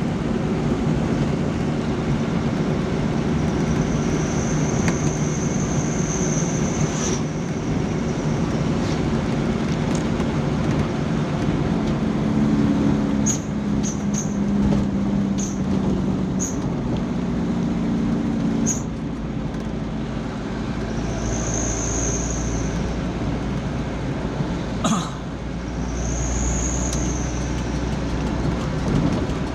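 Truck engine running with steady road noise while driving, with a few short ticks and clicks along the way.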